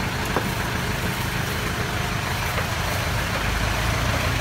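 An engine idling steadily: a continuous low drone with a hiss over it. There is a single sharp tap about half a second in.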